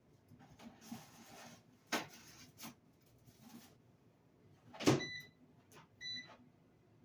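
Air fryer being closed and set: a few light clicks and knocks, a louder knock about five seconds in, then two short electronic beeps from its control panel about a second apart.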